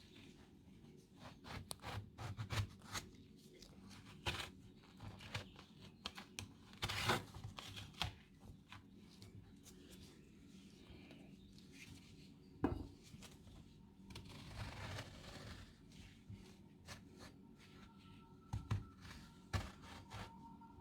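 Faint scraping and tearing as the flesh is hollowed out of halved eggplants, with scattered clicks and knocks of the utensil against the vegetable and board; the sharpest knock comes about halfway through.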